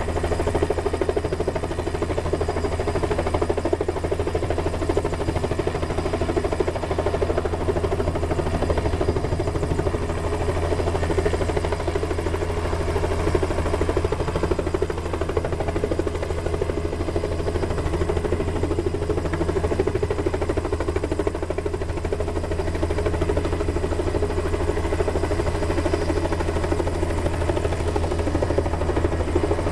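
A light two-bladed helicopter hovering close by: a steady, rapid rotor beat with a thin high whine over it.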